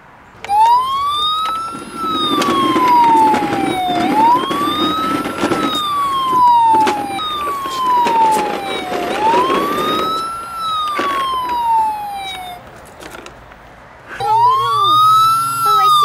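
Ambulance siren wailing, its pitch rising quickly and falling slowly about every three and a half seconds; it stops briefly near the end and starts again.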